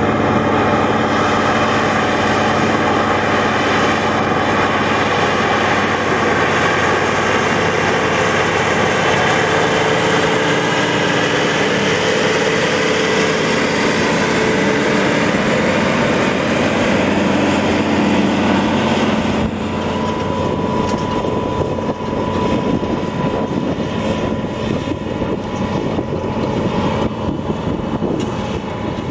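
ACO 600 tractor's twin-turbo V12 diesel running steadily under load while pulling a cultivator. About two-thirds in the engine sound changes and a thin steady whine comes in.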